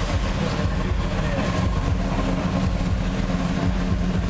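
Jet ski engines running steadily, with an even drone and no revving.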